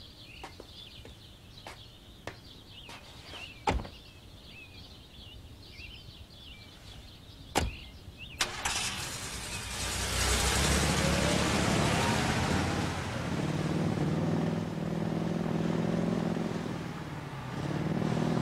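Birds chirping with a few sharp clicks, then about eight seconds in a convertible car's engine starts and runs, revving up and down.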